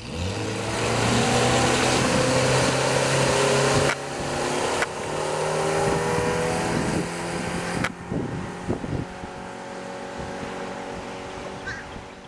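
Outboard motor of a Bayliner Element 16 deck boat running under way, its pitch rising as the boat speeds up in the first few seconds, then holding steady at speed, with wind and water rushing past.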